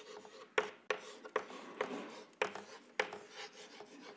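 Chalk writing on a chalkboard: scratchy strokes broken by several sharp taps as the chalk strikes the board.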